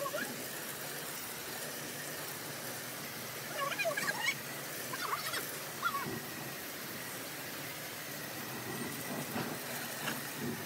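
Pressure-washer spray hissing steadily against a carved hardwood headboard, with a low machine hum underneath. A few short wavering animal calls sound around four and five seconds in.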